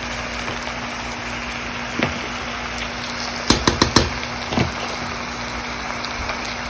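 Rice, lentils and cooked meat frying in a pot, with a steady sizzle. A sharp clink about two seconds in, then a quick run of four clinks around three and a half to four seconds and one more just after.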